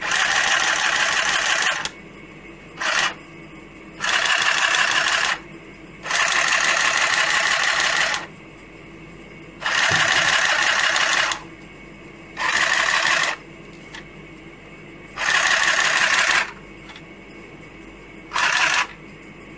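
Battery-powered handheld sewing machine stitching in short bursts of up to about two seconds, stopping and starting about eight times with a rapid buzzing chatter.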